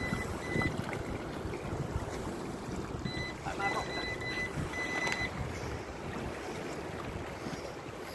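Wind noise buffeting the microphone at the waterside. A run of short, high-pitched beeps comes in the first second and again from about three to five seconds in.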